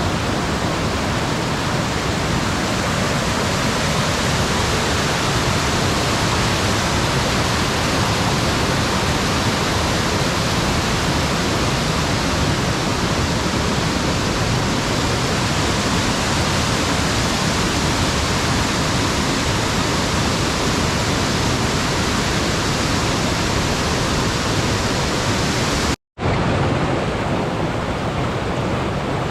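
Loud, steady rush of white water from a swollen rainforest creek cascade, cut off for an instant near the end before resuming.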